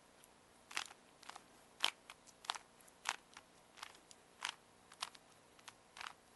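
Plastic Rubik's Cube layers being twisted by hand: a run of about ten short clacks, one every half second or so.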